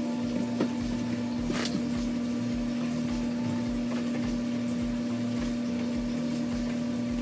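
A pump motor humming steadily, with a low throb about twice a second. There are a couple of light knocks in the first two seconds.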